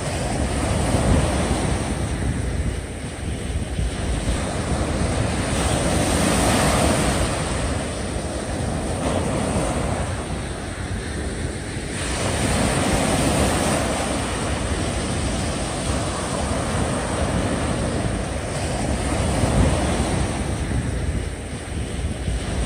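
Small waves breaking and washing up a sandy beach, the surf swelling and easing every few seconds, with wind rumbling on the microphone.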